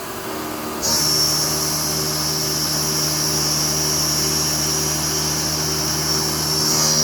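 Haas 5-axis CNC mill running, with a steady low machine hum. A high-pitched whine cuts in sharply about a second in and holds steady.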